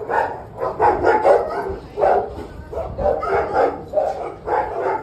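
Dogs barking repeatedly, about three barks a second, from a shelter's kennel runs.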